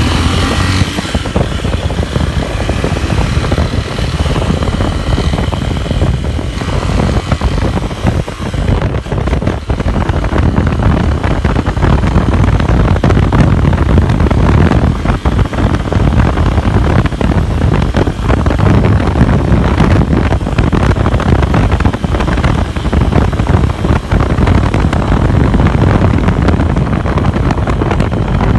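Motorcycle engine running loud while riding, mixed with heavy wind rushing over the microphone.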